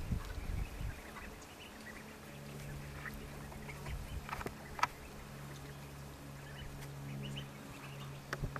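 A crowd of Rouen ducklings peeping, with many short scattered calls and a few sharp ticks, and some low rumbling in the first second. A steady low hum starts about two seconds in.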